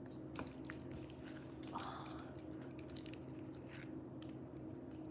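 Small plastic Lego pieces being handled, with faint scattered clicks and rattles, over a steady low hum.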